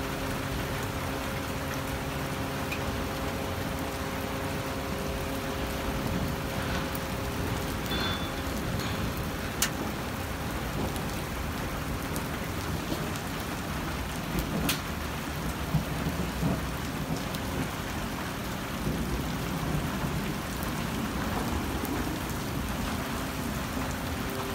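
Rain mixed with hail falling on pavement, parked cars and grass: a steady hiss, with a few sharp ticks of hailstones striking about ten and fifteen seconds in. A faint steady hum fades out about eight seconds in.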